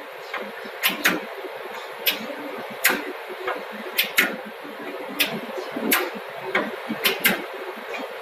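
CNC wood-turning lathe running with a steady hiss, broken by sharp irregular clicks about once a second.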